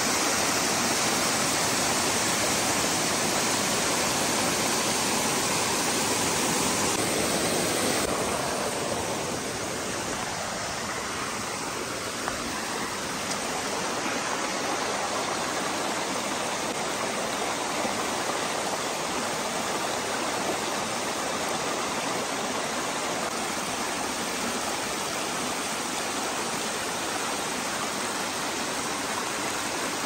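Rushing water from a small waterfall and cascade tumbling over sheet rock in a stream, a steady rush that drops a little in level about eight seconds in.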